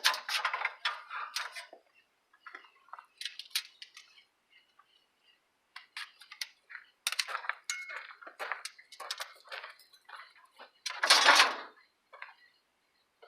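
Pieces of scrap metal clinking and knocking together as they are handled and pulled out, in scattered short strikes, with one longer, louder noise about eleven seconds in.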